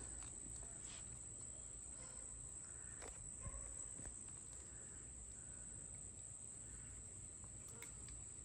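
Insects trilling in a steady, high, even tone, with a few faint clicks.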